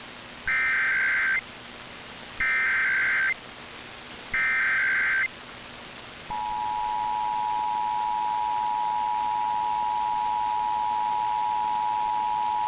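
Emergency Alert System SAME header: three bursts of warbling data tones, each about a second long and a second apart. About six seconds in, the two-tone EAS attention signal starts and holds steady, opening a test of the alert system.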